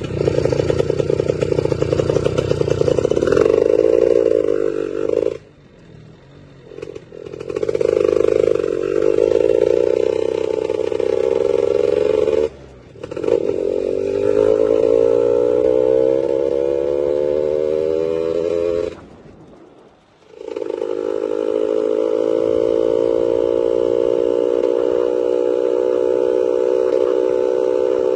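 Yamaha F1ZR two-stroke single-cylinder engine running hard with its 'ngorok' (snoring) exhaust note, pitch climbing under throttle. Three times the throttle is shut and the sound drops away: for about two seconds a little after five seconds in, briefly near the middle, and again for over a second before the end, where the revs then hold fairly steady.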